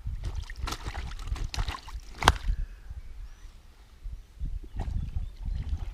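Close rustling and knocking of something being handled, over a low steady rumble; one sharp click a little over two seconds in is the loudest sound.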